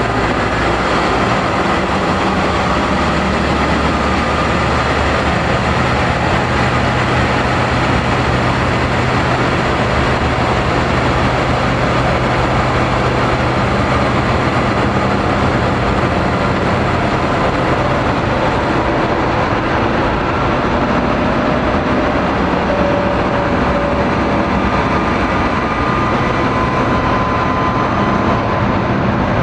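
Noise/dark-ambient drone: a loud, steady wall of dense rumbling noise with faint low held tones underneath.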